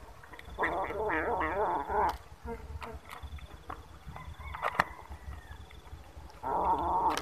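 Stray kittens crying out while crowding over food: a drawn-out wavering meow about a second in and another near the end, with a few light clicks in between.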